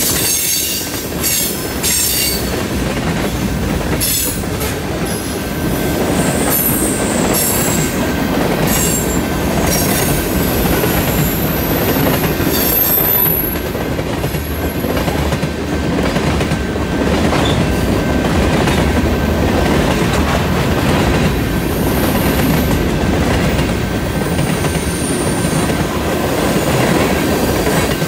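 Tank cars of a heavy freight train rolling past close by on a curve: steady rolling noise of steel wheels on rail with clicks at the rail joints, and high-pitched wheel squeal coming and going as the wheels grind through the curve.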